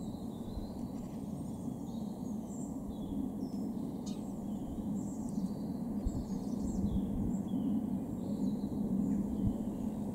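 Distant roar of a Swiss Airbus A330's jet engines cruising at about 36,000 feet: a steady low rumble that grows slowly louder. Small birds chirp over it.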